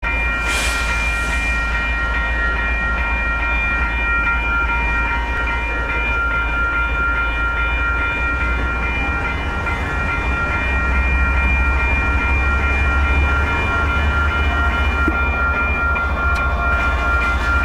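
Freight train of lumber flatcars and tank cars rolling past at close range, with a steady deep rumble and several steady high-pitched ringing tones over it. The rumble grows louder about ten seconds in as a mid-train Union Pacific diesel locomotive comes alongside.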